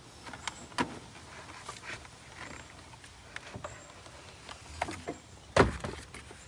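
Car battery being lifted by hand out of its tray in the engine bay, its plastic case giving scattered clicks and knocks as it bumps the surrounding parts, with the loudest knock about five and a half seconds in.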